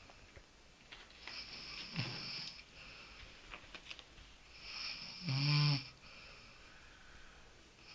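A sleeping person snoring: a breathy hiss of breath early on, then one loud, buzzing snore about five seconds in.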